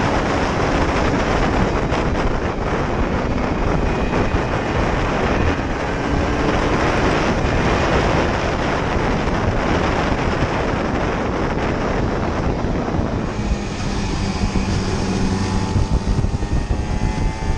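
Aprilia RS125 single-cylinder two-stroke engine running at speed, largely buried under wind rush on the microphone. About thirteen seconds in, the wind eases and the engine note comes through clearly, its pitch sweeping up and down with the revs.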